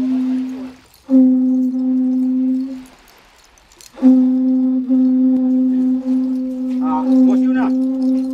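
Conch shell trumpet blown in long, steady blasts at one low pitch: one blast ends about a second in, a second lasts about a second and a half, and a third starts about four seconds in and holds on. Voices call out briefly over the last blast.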